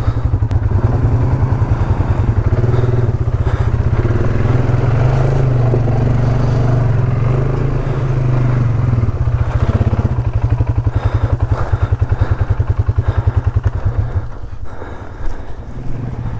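ATV engine running steadily under load as the quad rides along the trail, with clatter from the machine. The engine eases off briefly near the end, then picks up again.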